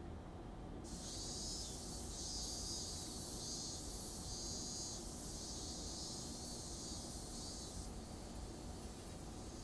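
Night insects chirping in the episode's soundtrack: a faint, high-pitched hiss that comes in repeated pulses, starting about a second in after music cuts off.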